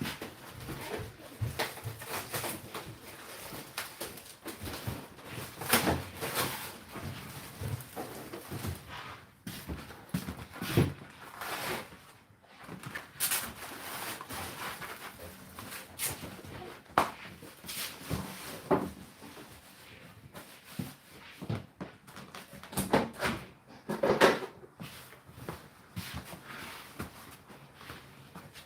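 A series of irregular knocks, clunks and clatters, some sharp and loud, with no steady machine sound.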